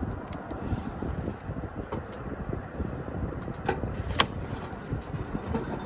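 Low rumbling noise, with light clicks of metal on metal as the furnace's gas manifold screws are fastened; two sharp clicks come close together about four seconds in.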